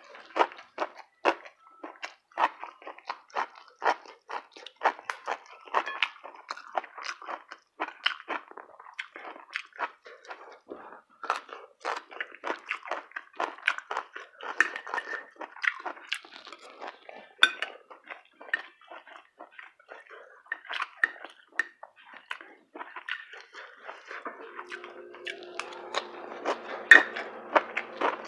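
A person chewing and crunching food close to the microphone, with many irregular crisp bites. A faint steady hum comes in about 24 seconds in.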